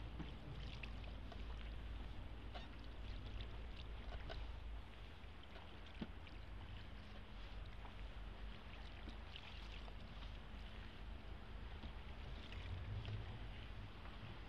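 Water lapping and splashing lightly around a small Venetian rowing boat as it is rowed with a single oar, with scattered small drips and splashes over a low steady rumble. There is a single light knock about six seconds in.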